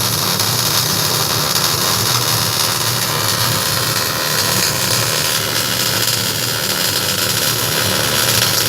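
MIG welding arc giving a steady, loud, crackling hiss, with a steady low hum beneath it.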